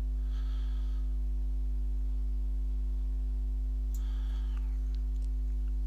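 Steady low electrical mains hum on the microphone recording, unchanging throughout. Two faint breaths are heard, one just after the start and one about four seconds in.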